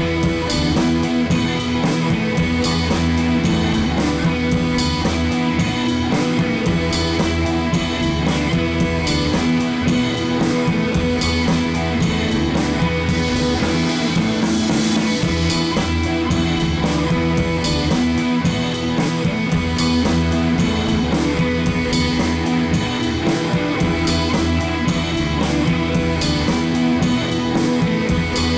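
Background rock music with guitar and drums, keeping a steady beat.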